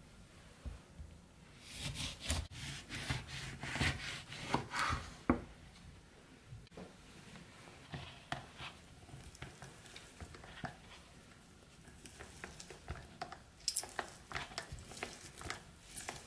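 A kitchen knife sawing through oranges on a wooden cutting board: several rough rasping strokes with knocks on the board in the first few seconds. Later, orange halves are twisted and pressed onto a plastic hand citrus juicer, giving short wet scrapes and clicks near the end.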